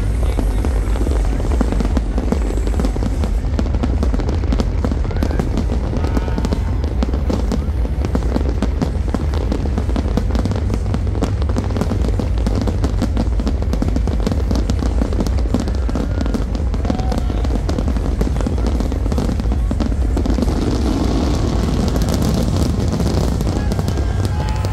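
Aerial fireworks bursting and crackling densely and without pause, mixed with loud music with a heavy bass.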